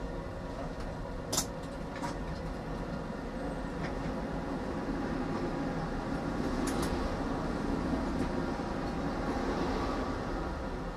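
Tram running along its track, heard from the driver's cab: a steady rumble that grows louder past the middle. There is a sharp click about a second and a half in and two more close together a little past halfway.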